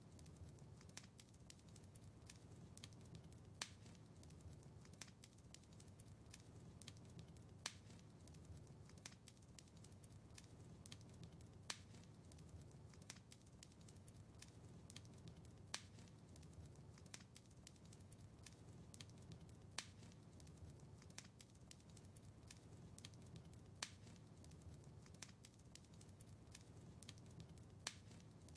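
Wood fire crackling faintly in a fireplace: a steady scatter of small sharp snaps, with a louder pop about every four seconds, over a low steady rumble.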